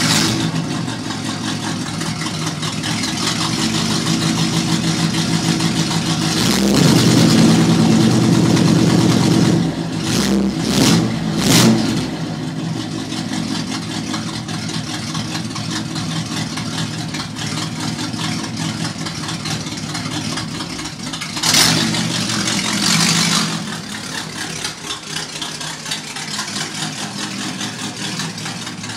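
1975 Corvette C3's carbureted V8 burbling at idle. It is revved and held up for a few seconds about a quarter of the way in, then blipped three times in quick succession, and blipped twice more later on before settling back to idle.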